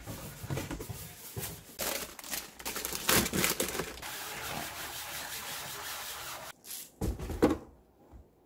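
Sponge scrubbing white plastic surfaces: an uneven rubbing scrape in strokes, then a steadier stretch of scrubbing. A couple of knocks come a little before the end, the loudest of them about seven and a half seconds in.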